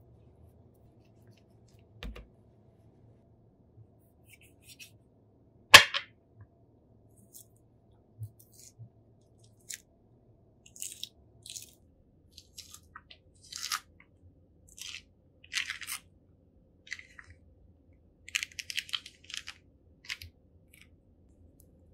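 Drink-preparation handling sounds: a sharp knock about six seconds in, then a run of short crunching, scraping noises.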